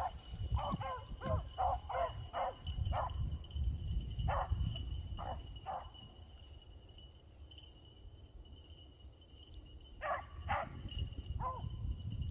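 A pack of beagles baying on a rabbit's trail: a quick string of short bays in the first three seconds, a few more around four to six seconds, a lull, then more about ten seconds in.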